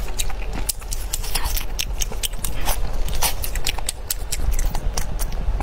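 Close-miked chewing and biting of crusty fried meat: a quick, irregular run of sharp crunchy clicks over a steady low hum.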